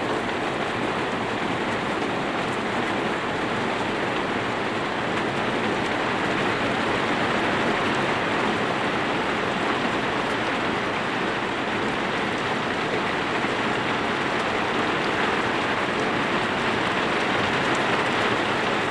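Rain falling steadily, a loud, even patter with no break.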